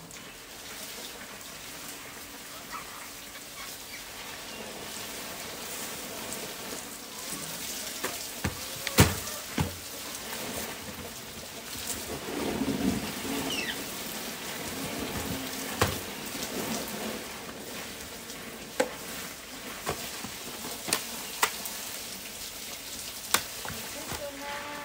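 A steady hiss, with several sharp clicks and knocks scattered through the second half.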